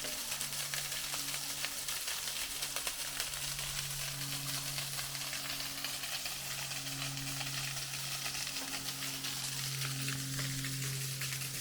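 Water pouring down in a steady hiss, with a dense patter of drops. A low steady hum sits under it.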